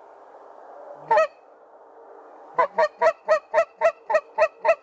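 Canada goose honking in flight: a single honk about a second in, then a rapid, even run of honks, about four a second, from halfway through.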